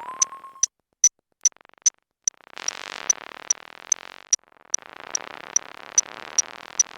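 Quirky electronic synthesizer music: sharp ticks about two and a half times a second, a short rising tone that levels off at the start, then long stretches of noisy hiss under the ticking.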